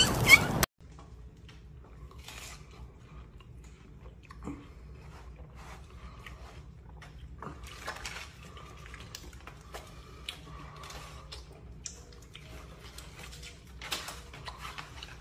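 A brief loud sound cuts off abruptly less than a second in. Then comes a deer buck biting into a slice of watermelon and chewing it: quiet, scattered crunches and wet chewing sounds.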